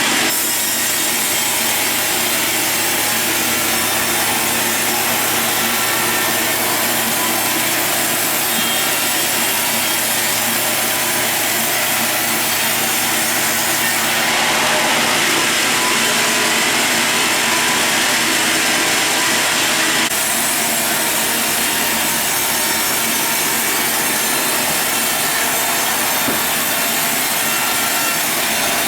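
Sawmill saw cutting steadily through a log: a loud, continuous sawing noise that shifts abruptly in character about 14 and 20 seconds in.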